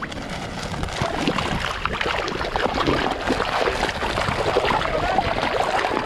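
A crowd of large carp churning and gulping at the water surface for food: many quick splashes and sucking slurps close by, slowly getting louder.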